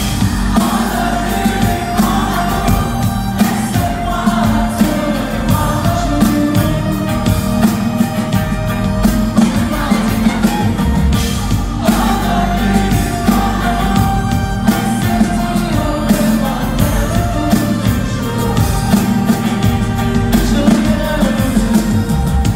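Live band playing a song on stage, heard loud over the hall's PA from the audience: a lead vocal sung into a microphone over keyboards, electric guitar and drums with a steady beat.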